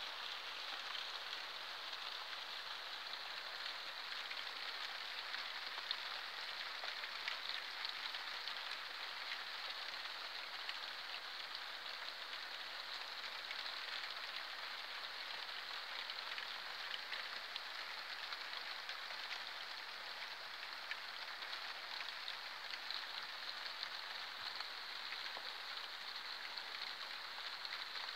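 Moderate rain falling steadily: an even hiss of rain with scattered sharper taps of single drops.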